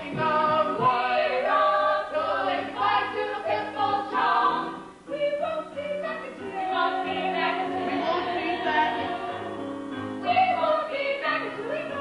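A stage-musical cast singing together with musical accompaniment. There is a short dip about five seconds in, followed by several long held notes.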